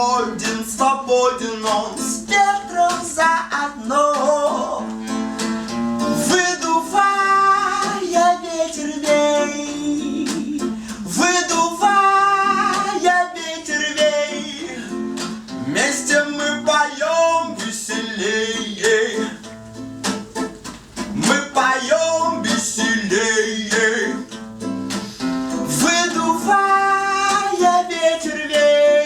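Acoustic guitar strummed steadily, with a voice singing a gliding melody over it.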